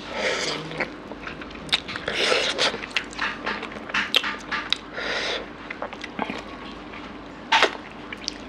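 Close-miked wet chewing, lip-smacking and sucking as a person eats curried mutton on the bone with their hands, with many sharp little clicks and a few short slurping bursts.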